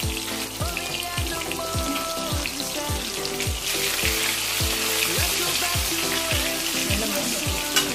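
Chicken drumsticks frying in hot oil in a kadai: a steady sizzle that grows louder and fuller about halfway through. Background music with a steady beat runs underneath.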